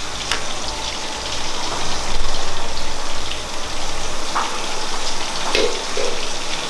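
Steady hiss of food cooking in pans on a gas stove, with a few light clinks of a metal utensil.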